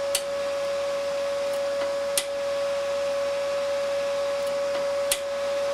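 Spool gun's wire-feed motor running with a steady whine, driving 0.8 mm aluminium wire out of the contact tip, with three sharp clicks along the way.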